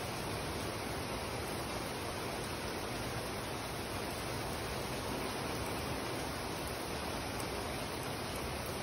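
Heavy rain falling steadily on wet pavement: an even, unbroken hiss.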